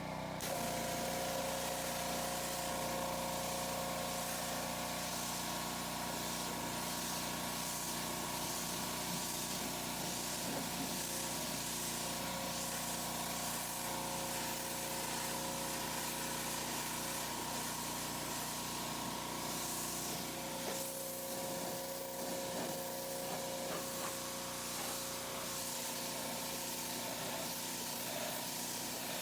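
Pressure washer running steadily, its jet spraying with a constant hiss over the steady whine of the machine.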